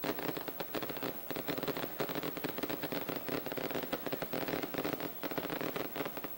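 Fireworks on a daytime fogueteiro balloon going off as a dense, continuous crackle of many small reports in rapid succession.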